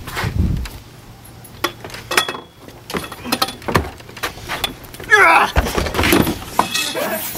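Scattered sharp knocks and clatters from a staged scuffle, then a person's wavering cry about five seconds in.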